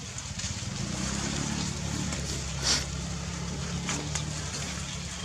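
A low, steady engine hum, as of a motor running in the background, with a short hiss about two and a half seconds in.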